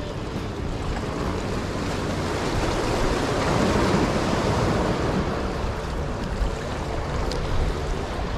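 Small surf washing in against jetty rocks and a sandy shore, swelling about three to four seconds in, with some wind on the microphone.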